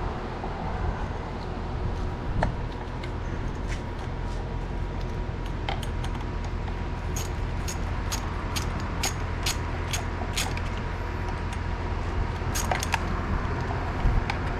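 Light metallic clicks and clinks from hand tools and small fasteners as a ground-wire bolt is undone, about two a second for a few seconds in the middle, with a couple more near the end, over a steady low rumble.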